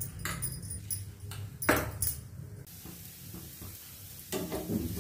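A few knocks and clinks of utensils against a pan in the first two seconds, the loudest about two seconds in, then a steady hiss of dosa batter frying in ghee on a hot tawa.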